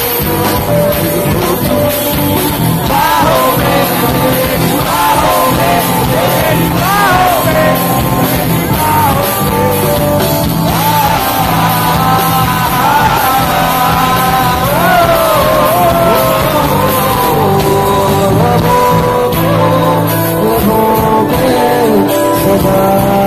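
Live rock band playing loud through a concert PA, with guitars, bass and drums. A lead singer's wavering melody comes in about three seconds in and carries through most of the stretch.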